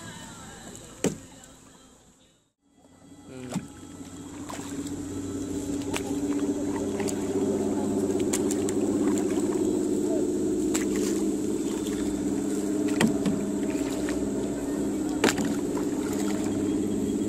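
A boat motor humming steadily, fading almost out about two seconds in, then building up from about four seconds in and holding. Scattered sharp clicks and knocks sound over it.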